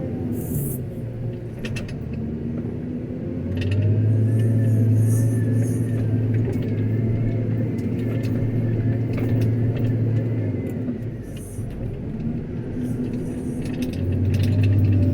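JCB 426ZX wheel loader's diesel engine working gravel. It revs up under load about three and a half seconds in, drops back around eleven seconds and revs up again near the end, with a thin wavering whine over the drone.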